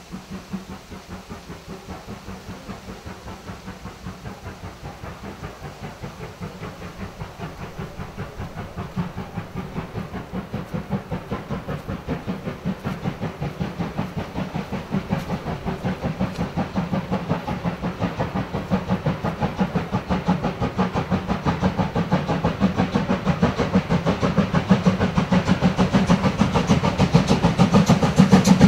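Steam locomotive approaching under steam, its exhaust beats coming in a fast, even rhythm that grows steadily louder as it nears.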